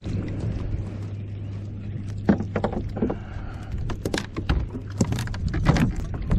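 Water splashing and lapping around a plastic kayak hull, with irregular sharp knocks and clicks of fishing gear being handled and a steady low hum underneath.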